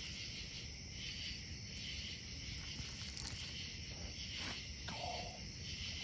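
Steady chorus of crickets and other night insects, with a low rumble underneath.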